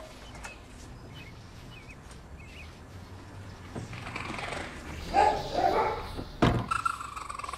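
Raccoon kit crying, a series of high, wavering calls starting about four seconds in. A single knock on the wooden door comes near the end.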